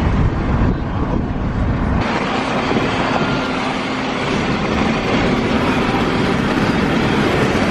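Road and wind noise inside a moving car with a window open: a steady loud rush over a low rumble.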